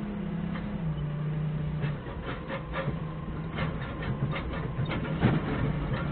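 Forklift engine running as the truck drives, a steady low hum, with a string of rattles and clanks from the machine over the road surface and one louder knock about five seconds in.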